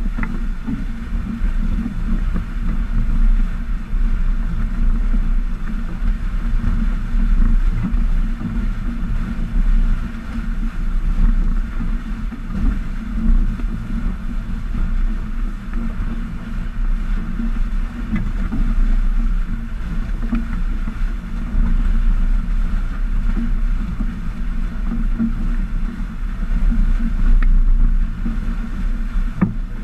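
Steady rush of water along the hulls of a Stiletto 27 catamaran sailing at about 7 to 8 knots, mixed with a low rumble of wind on the microphone.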